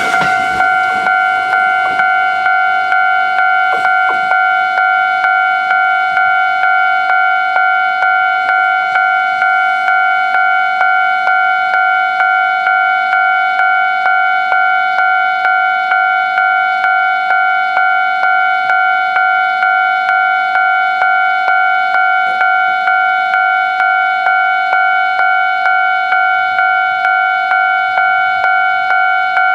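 Japanese level crossing alarm ringing steadily, its electronic bell striking about twice a second.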